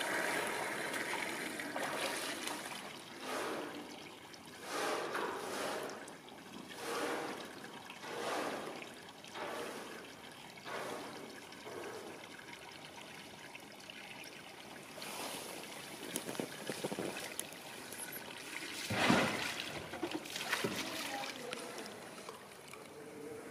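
Young polar bear moving in and drinking from shallow pool water: repeated splashing and trickling swells every second or two, with one louder splash-like burst near the end.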